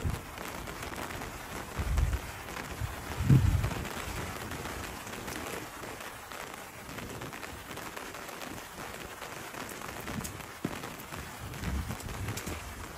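Steady rain falling on a paved lane and the walls and greenery around it. A few low thumps come through, the loudest about three and a half seconds in.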